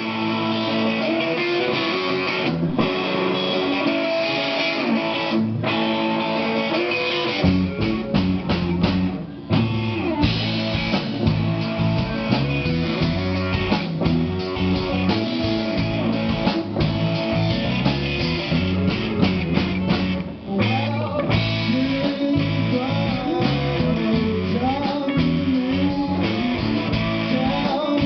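Band playing live: guitar opens alone, then the drums and low end come in about seven and a half seconds in and the full band plays on, with brief breaks near nine and a half and twenty seconds.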